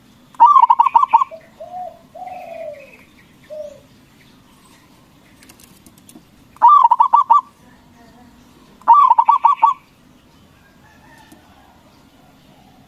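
Zebra dove (perkutut) cooing: three loud bursts of quick, staccato coos, about half a second in, near the middle and about nine seconds in, with softer, lower coos between the first two.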